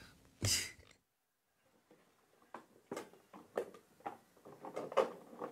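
Small toiletry items clicking and knocking as someone rummages through a zippered toiletry bag at a bathroom sink, a string of separate light knocks with rustling between them. Near the start there is one short kitchen scrape.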